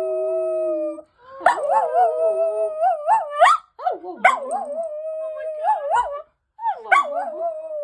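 Dog howling: long pitched howls, some held level and some wavering up and down. They break off briefly about a second in, again near four seconds and after six seconds, then start again.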